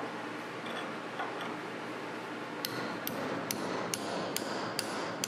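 Light, evenly spaced metal-on-metal taps, about two and a half a second, starting about halfway through: a steel chisel being worked against a welded steel forging canister clamped in a vise, to free a canister that has stuck to its billet because no titanium dioxide was used.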